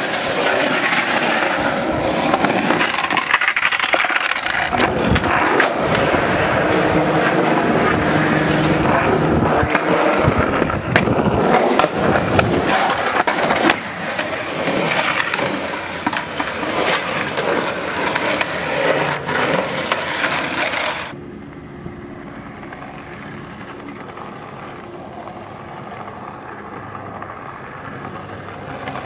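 Skateboard wheels rolling loud and fast over concrete in a bowl, with repeated sharp clacks and slaps of the board hitting the concrete. About 21 seconds in it cuts abruptly to a much quieter, steady background with a faint low hum.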